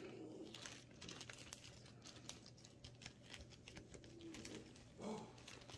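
Faint crinkling of a plastic toy blind bag being handled, with scattered soft crackles.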